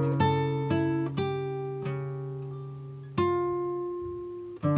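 Background music on acoustic guitar: single notes and chords plucked and left to ring out and fade, with a new one struck every half second to a second or so.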